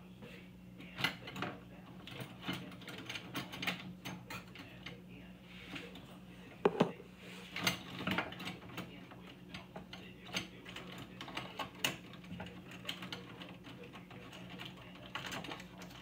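A string of irregular clicks and knocks, the loudest a single knock about halfway through, over a steady low hum.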